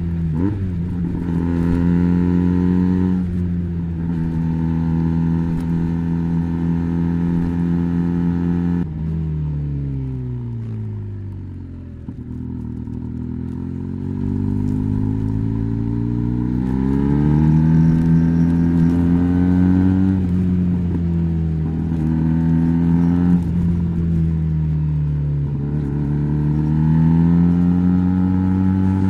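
Benelli BN302's 300 cc parallel-twin engine running through an Arrow exhaust with the dB killer fitted, held at raised revs for several seconds. It falls back to near idle about a third of the way in, then is slowly revved up and held again, with another dip and rise near the end.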